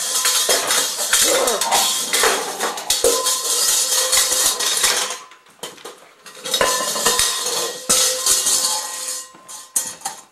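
A dog's bowl clattering and banging over and over, with a ringing tone after the knocks and a lull of about a second midway.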